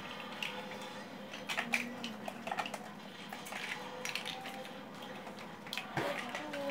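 Large plastic building blocks clicking and clattering against each other and the tiled floor as they are picked up and pressed together, in scattered clicks, some in quick clusters.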